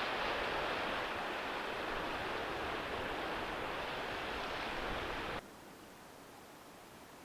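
Steady rushing noise, like water or wind outdoors, that cuts off abruptly about five seconds in, leaving a much fainter background hiss.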